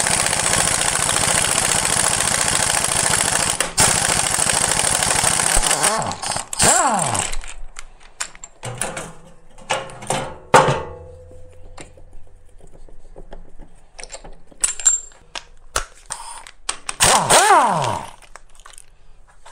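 Impact wrench hammering on the crankshaft pulley bolt of a DW12 2.2 HDi diesel engine, with a brief break about four seconds in; its motor then spins up and winds down at about seven seconds. Sockets clink and knock in the tray, and near the end the wrench spins up and down again briefly on the timing belt tensioner pulley bolt.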